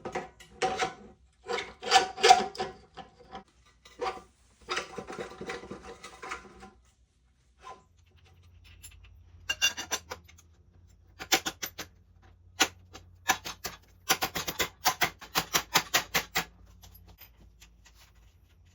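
Metal hand tools and hardware clicking and rattling while a motorcycle front end is bolted together. Irregular clusters of clicks come first, then quick even runs of sharp clicks later on.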